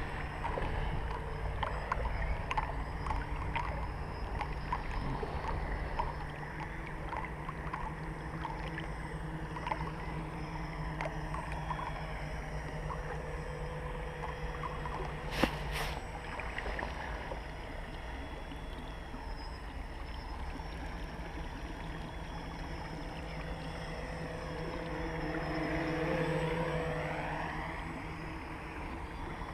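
Water lapping and ticking against a kayak hull, under the steady buzz of a small 3D-printed tricopter's electric motors. The buzz swells with a sweeping, phasing sound as the tricopter passes close about three-quarters of the way through. There is one sharp knock about halfway.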